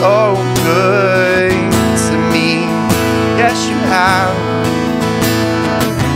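Acoustic guitars strumming a slow worship song while a man sings held notes with vibrato.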